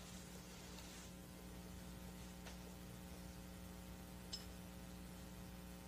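Quiet room tone: a steady electrical hum with a faint hiss, and two faint ticks, one about two and a half seconds in and one about four seconds in.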